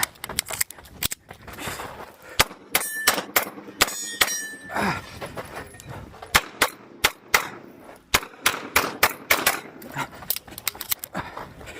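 Kimber 2K11 pistol firing quick strings of shots during a practical shooting stage, many fired as fast pairs. Two ringing metallic hits, about three and four seconds in, are steel targets being struck.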